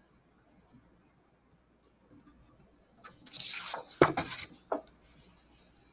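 A sheet of cardstock sliding and rustling across the table as it is turned, about three seconds in, with a light knock at about four seconds and a smaller one soon after. Before that, only a faint scratch of crayon on paper.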